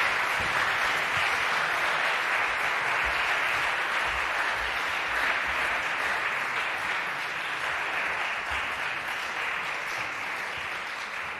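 Audience applauding steadily, gradually fading over the last few seconds.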